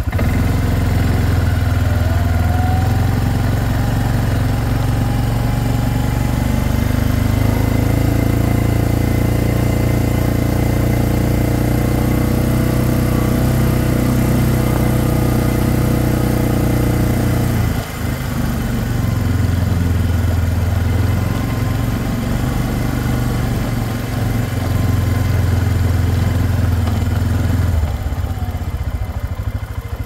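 Four-wheeler (ATV) engine running while riding along a trail, its pitch climbing over the first few seconds. The engine sound dips sharply for a moment about eighteen seconds in, then picks up again.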